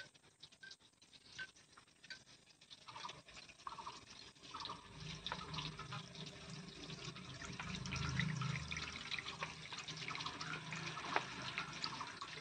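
Hands swishing red lentils in a bowl of water with soft little splashes, then the rinse water trickling and splashing out into a stainless steel bowl, building from about a third of the way in and loudest a little past the middle.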